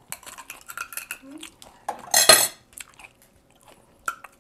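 Metal fork clicking and scraping against a cooked oyster's shell as the meat is worked loose, with a louder, harsh scrape about two seconds in and a single sharp click near the end.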